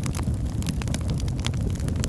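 Fire crackling in a fireplace: a steady low rumble of flame with frequent small, sharp pops and snaps.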